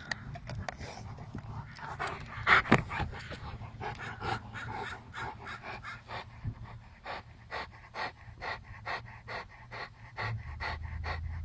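Rottweiler panting hard in a steady rhythm, about three breaths a second.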